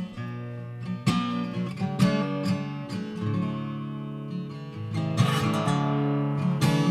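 Background music: acoustic guitar strumming chords in an instrumental passage of a song.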